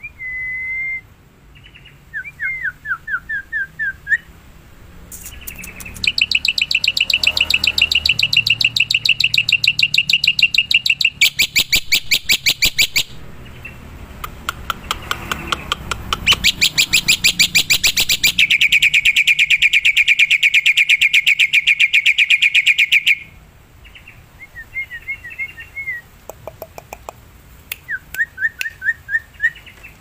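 Black-winged myna (jalak putih) singing loudly: a held whistle and runs of short rising notes, broken by long, very fast rattling trills from about six to twenty-three seconds in.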